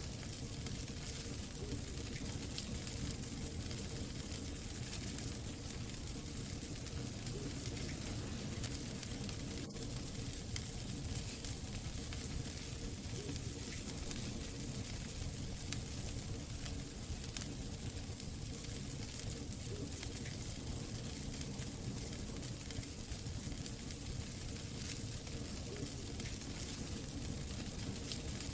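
Wood fire crackling steadily in a fireplace, with a couple of sharper pops a little past the middle.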